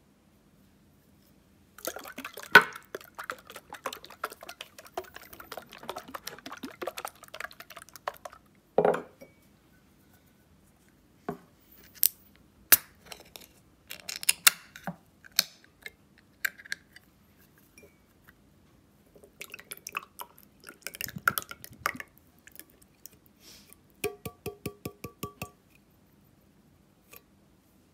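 A steel can of ITO EN corn potage being handled, opened and emptied into a ceramic mug: scrapes and clicks of the can, a single loud knock, then soup pouring out. Near the end comes a quick run of about a dozen ringing taps as the upturned can is knocked to get the last of the thick soup and kernels out.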